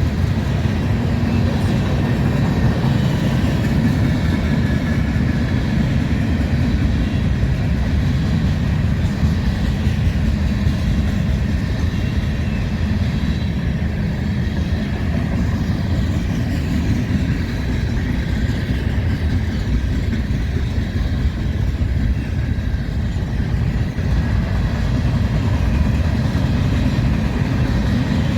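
Freight train cars rolling past on the rails: a steady, unbroken low rumble of wheels on track with faint steady tones above it.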